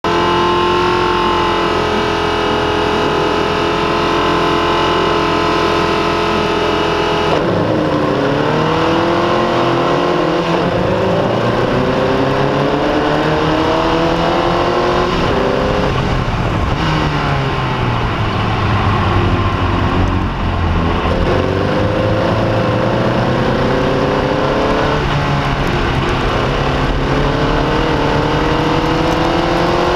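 Formula Vee race car's air-cooled Volkswagen flat-four engine at racing speed, heard onboard. It holds steady high revs for about seven seconds, then the pitch drops sharply at each of several gear changes and climbs again as the engine pulls through the gears.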